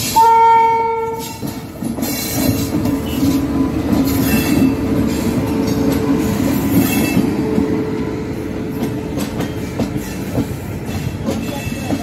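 WAP-7 electric locomotive's horn sounding one steady note for about a second as it passes, followed by its passenger coaches rolling by with a steady rumble and clatter of wheels over the rail joints.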